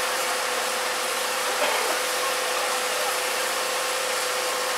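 D51 498 steam locomotive standing ready to depart, giving off a steady hiss of steam with a steady hum running underneath.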